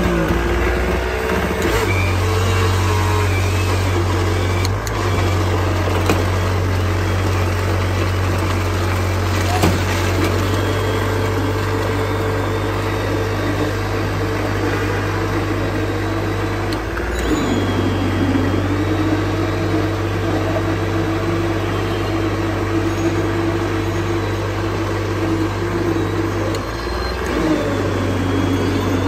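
Electric countertop blender running under load, pureeing ripe papaya chunks into juice. Its motor makes a steady hum with a whine whose pitch shifts as the fruit breaks down, dipping briefly about halfway through and again near the end.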